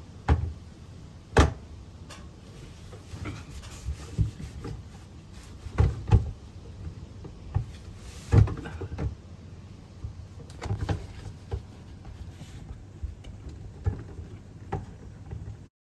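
Scattered knocks and clicks of a plastic caravan skylight hatch being handled as its slots are lined up on the roof frame. The sharpest knocks come about a second in and about eight seconds in.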